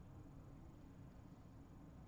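Near silence: steady low room tone.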